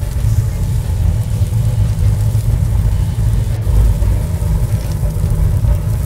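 A loud, steady low rumble with no clear rhythm or pitch.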